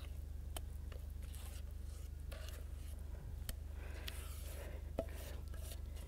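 Silicone spatula scraping cornbread batter from a stainless steel mixing bowl into a glass baking dish: faint scrapes and a few light clicks over a steady low hum.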